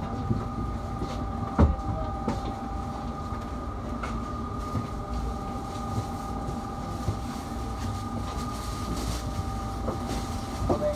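A standing tram's onboard equipment hums steadily from the driver's cab, with two high tones held throughout. There is a single sharp click about one and a half seconds in.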